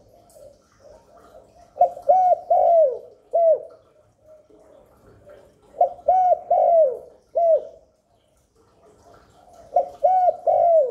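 Spotted dove cooing: three phrases about four seconds apart, each a run of four arched coos, with softer coos in between.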